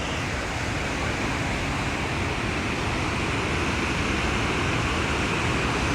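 Potomac River's waterfall rushing over the rocks of Great Falls: a steady, even roar of falling water.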